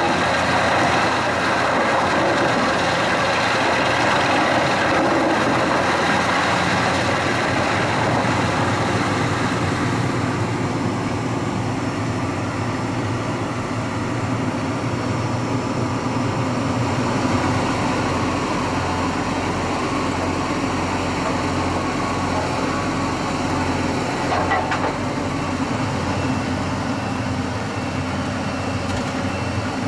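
Jenz HEM 561 Z drum wood chipper driven by a tractor, running and chipping wood with a loud, dense, steady noise over the low hum of the engine. The noise eases somewhat about ten seconds in.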